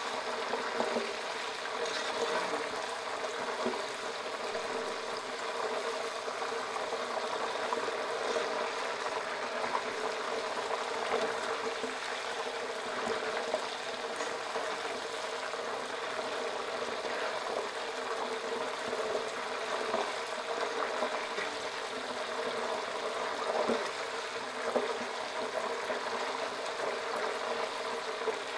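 Plantain slices deep-frying in oil: a steady bubbling sizzle as the salted water added to the oil boils off into the chips, with a few light clinks of a metal spatula stirring the pot.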